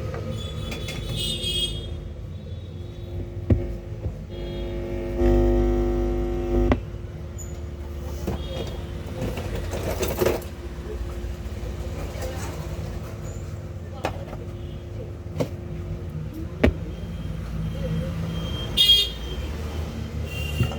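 Steady traffic rumble with a vehicle horn sounding once for about a second and a half, about five seconds in, and a few sharp clicks spread through the rest.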